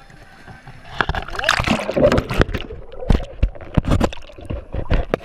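River water splashing and sloshing around a camera as it is dipped in and out of the water. The sound starts about a second in, choppy with sharp splashes and gurgles.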